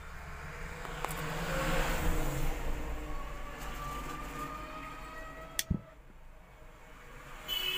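Rustling handling noise with a faint rising tone behind it, then a single sharp click with a low thump a little past halfway: the rocker power switch on the home theatre's back panel being flipped.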